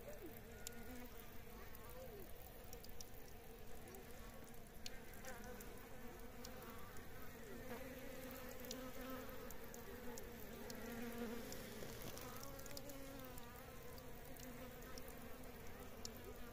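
Faint buzzing of flying insects, a wavering hum that comes and goes, with a few light clicks.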